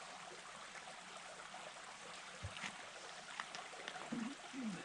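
Faint steady hiss-like background noise with a few light clicks, and a short low vocal sound near the end.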